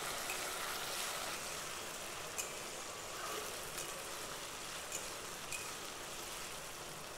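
Diced potatoes frying in mustard oil in a kadai, a steady sizzle, with a few faint clicks of the spatula as they are stirred.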